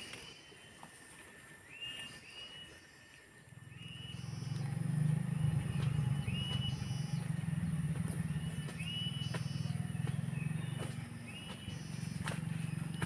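Cicadas shrilling steadily, with a short call repeating about once a second and footsteps brushing through undergrowth. From about three and a half seconds in, a low steady drone swells up and becomes the loudest sound.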